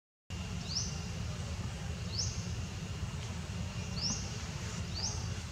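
Outdoor ambience: a steady low rumble under a short, high, rising call that repeats every second or two, with a faint steady high tone behind it. The sound drops out briefly at the very start.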